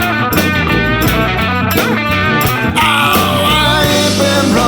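Blues-rock song with guitar playing between sung lines, over a steady band backing.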